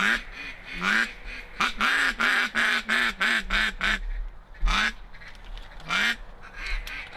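A hand-held duck call blown in quacks: two single quacks, then a quick run of about eight evenly spaced quacks, then two more single quacks spaced out.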